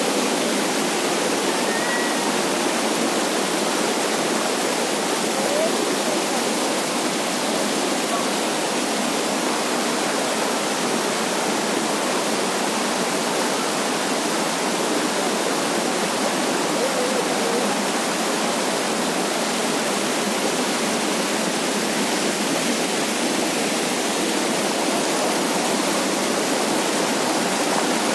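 Rushing water, steady and even: a stream or waterfall running without a break.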